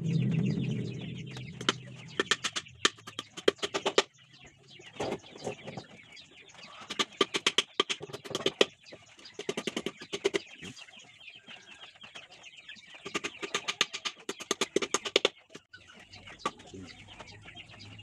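Chickens clucking in several runs of rapid calls. A louder low rumble comes in the first second or so.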